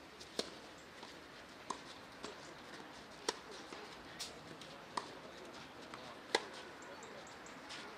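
Tennis rally on a clay court: a string of sharp hits as the ball is struck by the rackets and bounces, about one every second, the loudest coming late.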